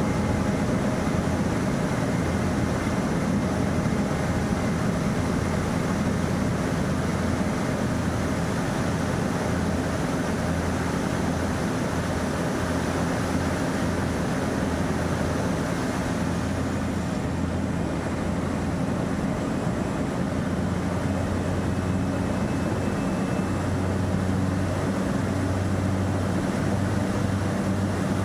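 Twin Otter's two PT6A turboprop engines and propellers running steadily on the landing approach, a steady hum with rushing air. The sound thins a little about two-thirds of the way through, and the lowest part turns uneven near the end.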